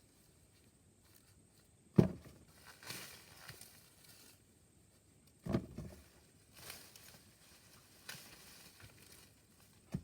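Ears of corn being snapped off the stalks by hand: three sharp snaps, the loudest about two seconds in, another around five and a half seconds and one near the end, with dry leaves and husks rustling in between.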